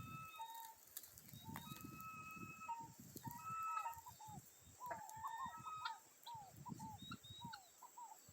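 Farm birds calling: low, rough calls in bouts and steady whistled notes, then from about halfway a run of short falling chirps, two or three a second.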